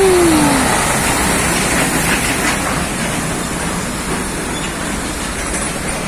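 Old Scania heavy truck hauling a lowbed trailer loaded with an excavator, passing close and drawing away: a steady diesel engine and tyre noise on a wet road that slowly fades. A falling tone dies away within the first half-second.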